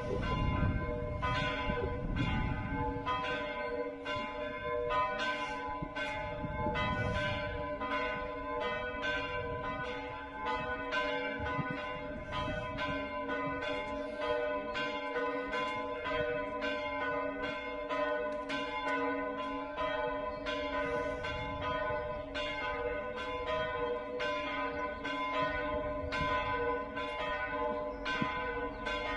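The church tower's bells ringing together in a full peal (plenum), their strokes overlapping without pause over a steady bed of ringing tones, rung before morning mass.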